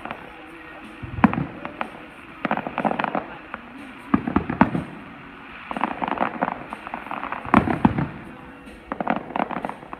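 Aerial fireworks bursting: about six quick clusters of sharp cracks and crackling pops, a second or two apart.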